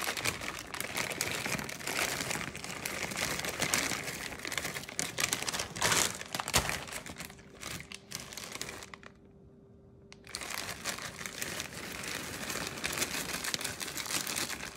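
Plastic bag of mixed vegetables crinkling and rustling as the pieces are shaken out into a pie crust. The sound stops for about a second around nine seconds in, then the crinkling starts again with a second bag.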